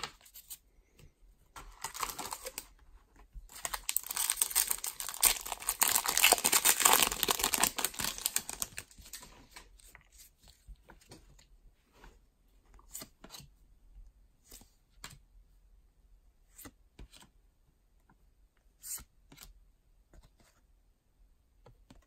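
A baseball card pack's wrapper being torn open and crinkled: a short rip about two seconds in, then several seconds of dense tearing and crinkling. After that come only scattered soft clicks as the cards are handled and flipped.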